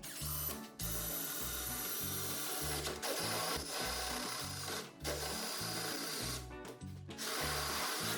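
Power drill running in three long bursts, the first about four seconds long, over background music with a steady beat.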